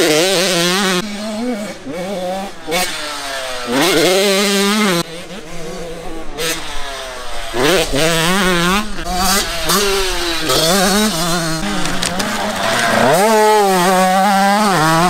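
85cc two-stroke motocross bikes revving hard, the engine pitch climbing and dropping back repeatedly as they accelerate out of corners and shift gears.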